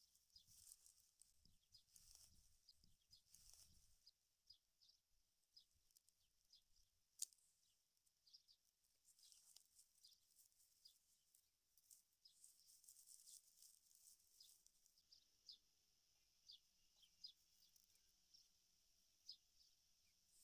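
Near silence: faint, scattered high chirps of small birds, with a soft rustle of palm fibres being handled in the first few seconds.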